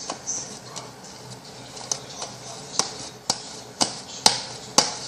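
Homemade shaving-cream slime being kneaded and snapped by hand, giving sharp pops and clicks that settle into about two a second, louder toward the end.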